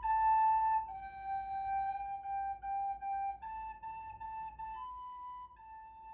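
A plastic recorder playing a slow tune of held notes, a new note every second or so. It grows steadily fainter as the player walks away from the microphone.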